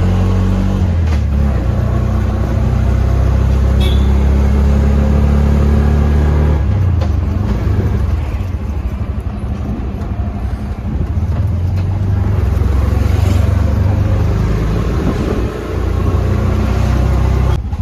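Auto-rickshaw engine running, heard from inside the moving auto-rickshaw, with wind and road noise. The engine note eases off for a few seconds in the middle, then picks up again.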